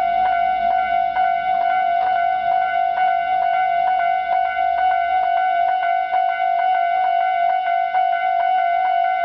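Japanese railway level-crossing alarm ringing its standard warning sound: a steady bell-like tone struck over and over, about two and a half strikes a second, loud.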